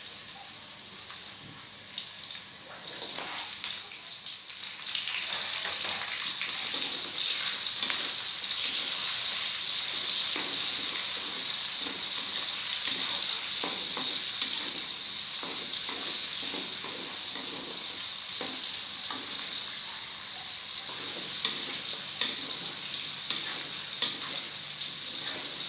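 Chopped chilies, shallots and garlic sizzling in hot oil in a wok. The sizzle grows louder about four seconds in, once the chilies go into the pan. A wooden spatula scrapes and knocks against the pan as it stirs.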